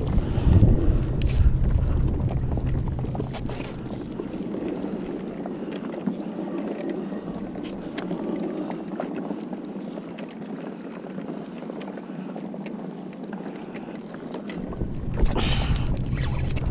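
Water lapping against a plastic fishing kayak's hull with wind rumbling on the action camera's microphone; the wind rumble eases about four seconds in and picks up again near the end. Scattered small clicks and knocks from the kayak and tackle.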